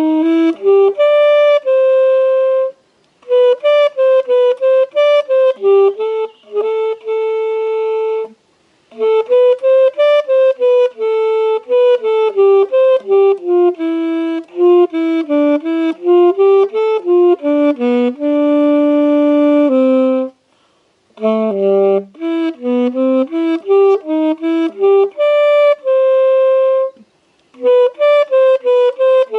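A solo wind instrument playing a melody without accompaniment, one note at a time in phrases, with short breath pauses between the phrases.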